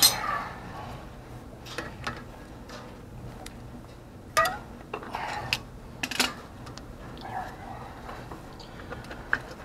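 Scattered metallic clicks and clinks as pliers press a drum-brake shoe's hold-down spring and cup retainer down over the hold-down pin and twist it to lock. There are about half a dozen sharp clinks, the loudest a little past four seconds in and about six seconds in.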